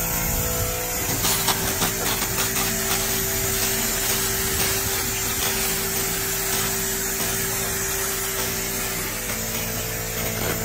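Continuous fiber laser cleaning machine burning grime off a 1958 Cadillac 365 engine block: a steady hiss with fine crackling, strongest in the first few seconds, over a steady machine hum.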